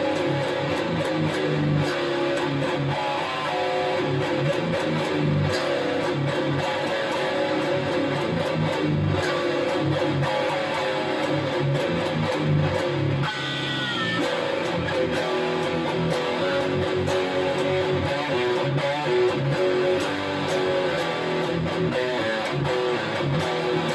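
Jackson JS22 DKA Dinky electric guitar played continuously through a Crate Blue Voodoo 60 amplifier, taken straight from the amp without a microphone. About halfway through, a high note slides downward in pitch.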